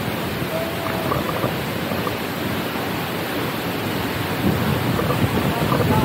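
Steady roar of a large waterfall, Chitrakote Falls on the Indravati River, with faint voices underneath.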